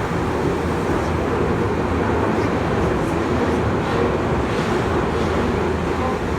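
Tokyu 8500 series commuter train running, heard inside the carriage: a steady rumble of wheels on rail with a faint tone and a few light clicks.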